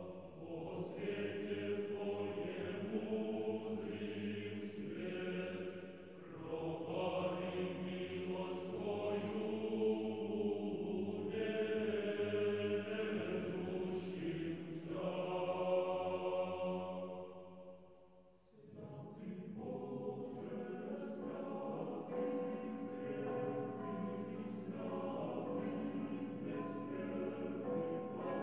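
Choir singing a slow chant in long phrases, breaking off briefly about two-thirds of the way through and then starting again.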